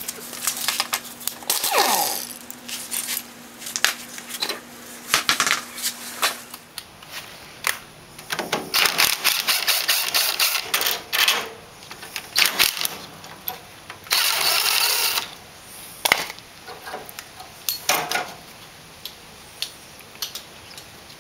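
Metal clanks and knocks as parts are handled under a riding mower, with one falling scrape early on, then a cordless power driver running in several bursts on the frame and transaxle bolts. The longest burst is about a second long, roughly three-quarters of the way through.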